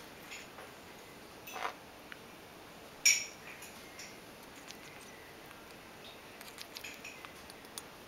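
Pionus parrot eating ice cream from a ceramic bowl: scattered soft clicks and taps of its beak against the dish. There is one louder, sharp, high click about three seconds in, and a run of faint ticks near the end.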